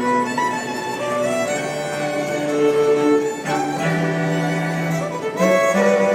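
Violin-led string music, a melody in long held notes over lower sustained notes.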